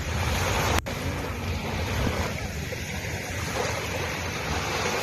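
Sea waves washing onto a beach, a steady rushing surf with wind buffeting the microphone. A brief dropout in the sound comes just under a second in.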